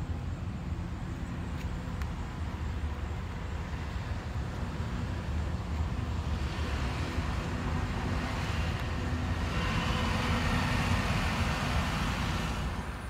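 Road traffic noise: a steady low rumble, with a hiss that grows louder over the second half and stops abruptly near the end.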